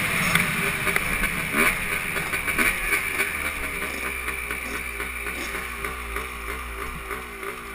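Dirt bike engines and riding noise as the bikes slow down. From about three seconds in they settle to an uneven, wavering idle that fades off gradually.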